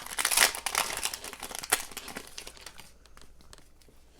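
Crinkling and rustling of a hockey card pack being handled and opened, with sharp crackles over the first three seconds, then fading out.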